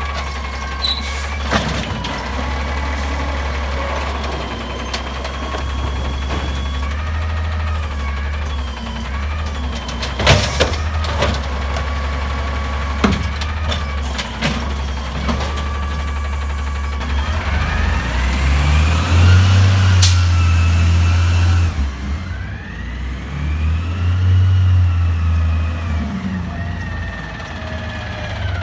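Freightliner M2 garbage truck's diesel engine running steadily while its Amrep HX-450 automated side-loader arm lifts and dumps carts, with sharp knocks and bangs from the carts and lids. Twice in the second half the engine revs up to drive the hydraulics, and a rising whine comes with it.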